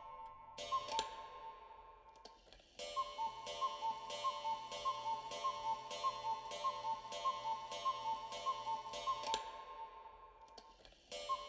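A rhythmic clock-like ticking, about three ticks a second, over a steady ringing tone. It fades in the first seconds, runs steadily from about three seconds in, cuts off suddenly about nine seconds in, and comes back just before the end.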